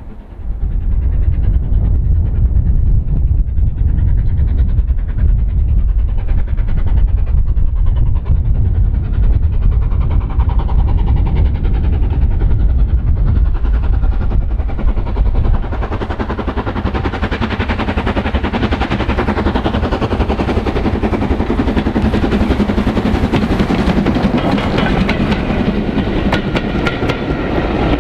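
LMS Stanier 8F 2-8-0 steam locomotive 48624 running past with its passenger train. A heavy low rumble builds as it approaches; from about halfway the coaches roll by with the clickety-clack of wheels over rail joints.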